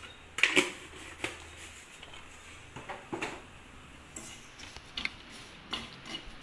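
Steel spoon scraping and clinking against a stainless steel kadai as fried onions and ground spices are stirred, with irregular sharp clinks, the loudest about half a second in.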